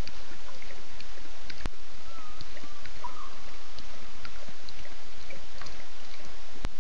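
Night ambience at a waterhole: a steady hiss with scattered short, high chirps and a brief wavering call. Two sharp clicks come a little under five seconds apart.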